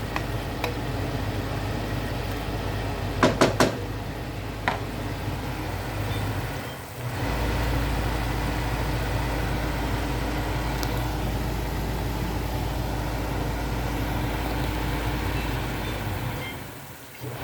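Steady low mechanical hum that dips out briefly twice, with three quick clicks a little over three seconds in and another a second later.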